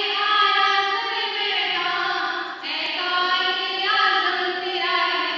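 A small group of young women singing together into a microphone, holding long notes, with a brief break about two and a half seconds in.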